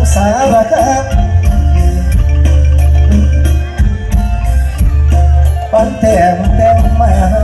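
Mor lam song: a man singing into a microphone over loud band music with a steady beat and a held low drone. The voice is heard near the start and again near the end, with the band alone in between.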